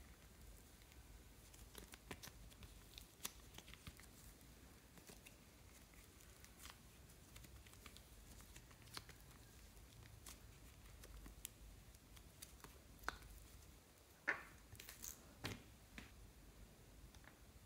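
Faint sticky crackles and small clicks of slime being stretched and squeezed between fingers, with a few louder clicks near the end.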